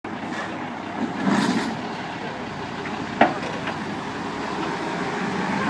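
Heavy truck engine running steadily, as one concrete pump truck pulls another stuck one, with a single sharp clank about three seconds in.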